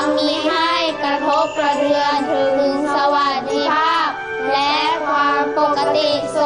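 A group of children singing together over music.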